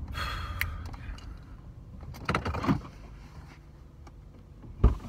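Inside a stopped car: low steady engine rumble with some handling noise, and a sharp clunk near the end as a car door is opened.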